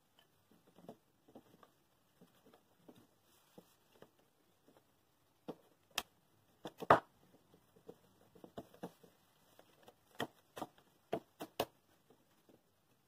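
Pine boards knocking and clicking as notched pieces of a wooden frame are slotted together and set down on a wooden tabletop: scattered light taps, with the sharpest knock about seven seconds in and a quick run of knocks near the end.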